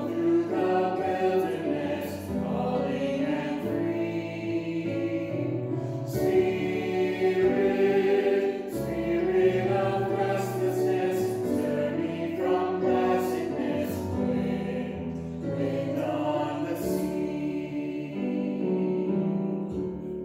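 Small mixed group of men's and women's voices singing a hymn refrain together in held, chord-like phrases. The last phrase tapers off near the end.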